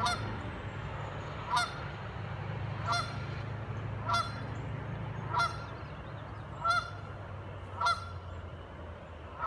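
Canada geese honking: about eight short honks, one every second or so, over a steady low rumble. The geese are calling because a person is close to them.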